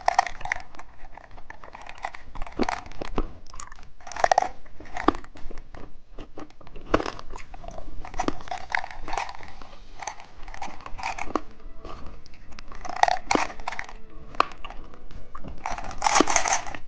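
Someone biting and chewing crunchy candy close to the microphone, giving an irregular run of crisp crunches and clicks.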